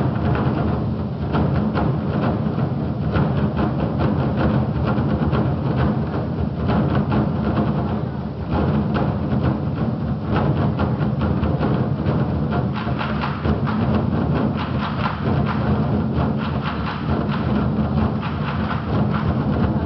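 Twenty-four festive drums: a troupe of large Chinese barrel drums beaten with sticks together, a dense, unbroken stream of strokes that runs into a deep rumble. It eases briefly about eight seconds in.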